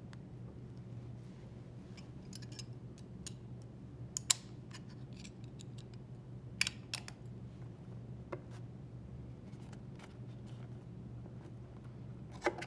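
Scattered light metallic clicks and snaps as a spring tension clamp is squeezed with channel-lock pliers and a plastic hose retaining clip is fitted onto a washer drain bellow assembly, the sharpest clicks about four seconds in and again near seven seconds, over a faint steady low hum.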